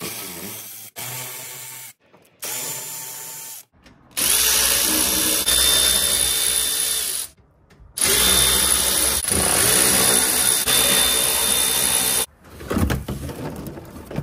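Cordless ratchet with a T25 Torx bit spinning out plastic belly-pan screws: three short runs, then two longer, louder runs of three to four seconds with a steady motor whine. Near the end there is lighter rattling and clatter as the loosened belly pan is handled.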